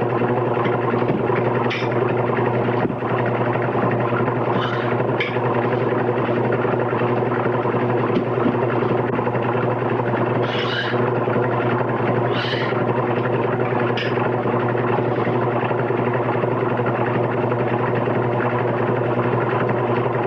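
Steady machine drone with a strong low hum running throughout, joined a few times by brief faint hisses.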